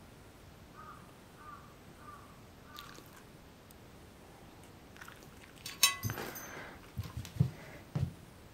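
Four short, faint calls about two-thirds of a second apart, then a sharp clink on glass and a few dull thumps near the end as the Shiba Inu gets down off the glass table onto the rug.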